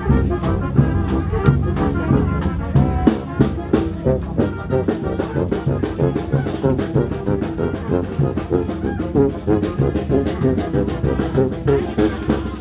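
Marching brass band playing live: brass instruments carry the tune over a steady drum beat.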